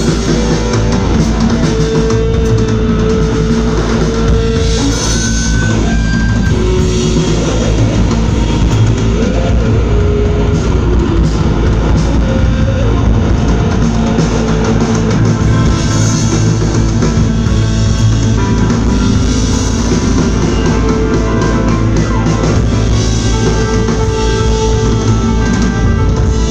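Live rock band playing loud: electric guitars over a drum kit, with long held guitar notes, heard from the crowd in a club.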